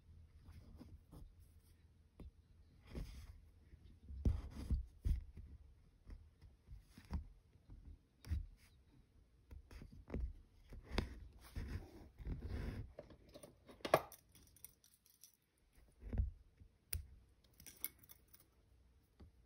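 Hand cross-stitching: needle and thread drawn through 25-count Zweigart fabric, heard as irregular soft taps, scrapes and rustles every second or so, with a few sharper clicks.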